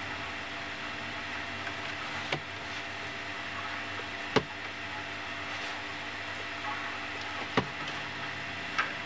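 Steady mechanical hum and hiss of workshop room noise, with four short sharp knocks from a leather strip and glue brush being handled on a workbench; the second knock is the loudest.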